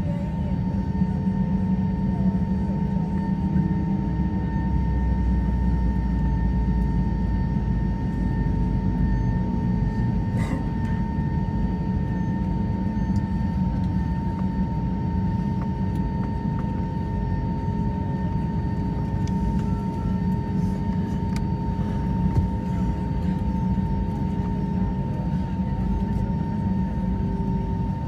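Cabin noise inside an Airbus A320 taxiing after landing: a steady low rumble with a constant whining hum from its idling IAE V2527 engines.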